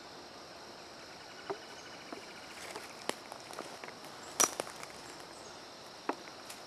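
Steady high insect drone with about five scattered sharp clicks or snaps. The loudest snap comes about two-thirds of the way through.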